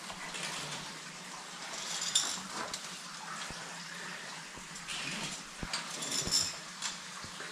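Rope-ascending gear in use: scattered metallic clicks and clinks from ascenders and carabiners, with rustling of rope and harness, as a caver climbs the rope. The sharpest clusters of clinks come about two seconds in and again around six seconds.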